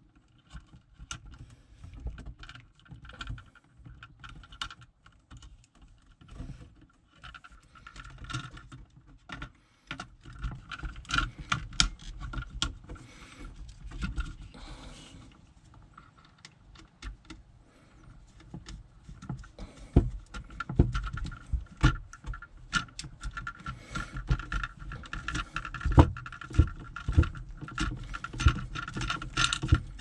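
Small irregular clicks, taps and rustles of hand work on an electrical outlet: pliers bending bare copper ground wires and a screwdriver tightening them under the outlet's ground screw. The clicks grow busier and louder in the second half.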